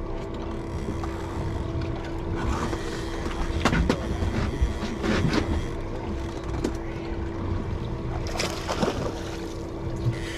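Outboard motor running steadily at low speed with a constant hum, and a few short splashes and clatters in the middle and near the end as hooked bonito are fought beside the boat.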